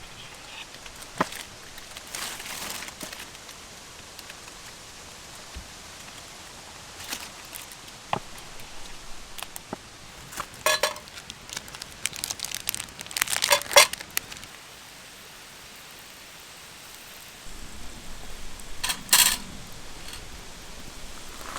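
Crinkling and rustling of something being handled, with scattered sharp clicks; the busiest rustling comes in two spells, the second near the end.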